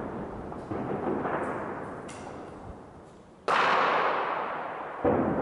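Gunfire and blasts from street fighting, echoing among city buildings. There are three sharp reports: one about a second in, a louder one about three and a half seconds in, and another near the end. Each trails off in a long rolling echo, with a few fainter cracks between the first two.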